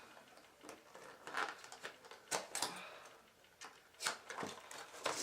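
Utility knife slicing through packing tape on a cardboard box: a run of irregular sharp scratches and scrapes, several coming close together in the second half.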